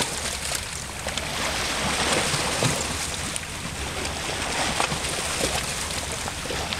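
Small sea waves lapping over a pebble and rock shore: a steady wash of water with little clicks and trickles among the stones.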